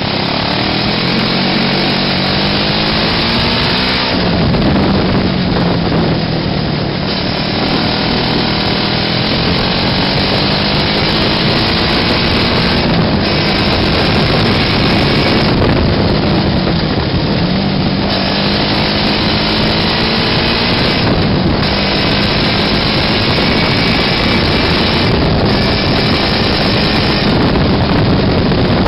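A homemade buggy's small air-cooled engine running under load on the road. Its pitch rises and falls as the throttle is opened and eased off several times.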